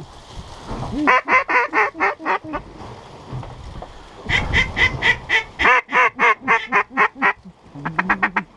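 Mallard hen quacks in rapid strings, loud and close, most likely a hunter working a mallard duck call. A string of about eight quacks comes a second in, a longer run of quacks follows from about four to seven seconds in, and a quicker, lower-pitched string comes near the end.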